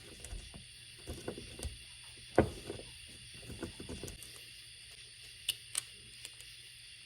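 Hand work on a small chainsaw carburetor: irregular light knocks and clicks of a tool and small metal parts being handled. The loudest knock comes about a third of the way in, and two sharp clicks come near the end, over a steady faint hiss.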